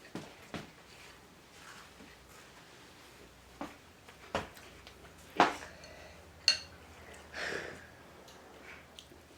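Close-up eating sounds: scattered soft mouth clicks and a spoon knocking on the soup bowl, with one clink about six and a half seconds in that rings briefly.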